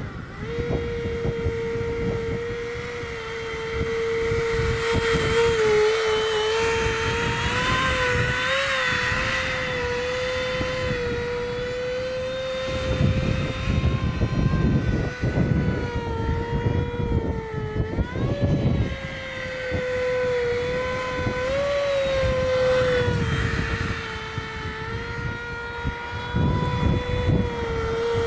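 Small electric ducted fan (DF-55 with a 4200 KV motor) whining steadily on an RC glider, its pitch wavering a little and dipping then rising briefly past the middle. Wind buffeting on the microphone rumbles underneath.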